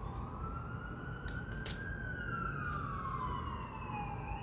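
Emergency vehicle siren wailing, its pitch rising slowly for about two seconds, falling to a low point near the end, then starting to rise again. A couple of faint clicks sound about a second and a half in.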